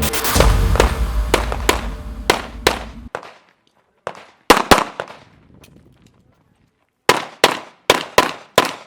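Pistol shots in quick strings: a single shot, then a pair, then a run of five about a third of a second apart, each with a short echoing tail. Background music fades out over the first three seconds.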